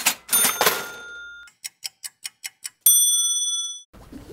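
Title-card sound effects: a swish with a ringing tone, then a quick run of about eight evenly spaced ticks, then a single bright bell ding about three seconds in that rings for nearly a second.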